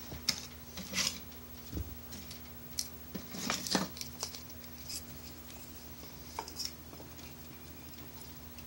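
Wood and kindling fire crackling in a rocket heater's feed chamber: scattered sharp pops and snaps, several close together around the middle, over a faint steady low hum.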